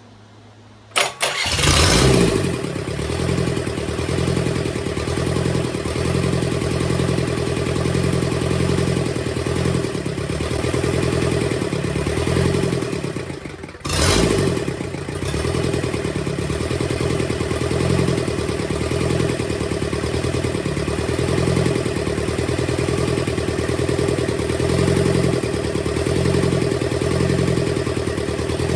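Freshly rebuilt Kubota V2203 four-cylinder naturally aspirated diesel cranked on its starter, catching about a second in and settling into a steady idle, with a brief break near the middle before it runs on. It runs with no knock or other sound of trouble, its valves not yet adjusted.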